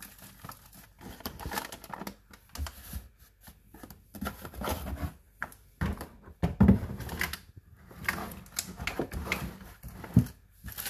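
Handling noise: irregular clicks, knocks and rustling, with a louder thump about two thirds of the way in and another near the end.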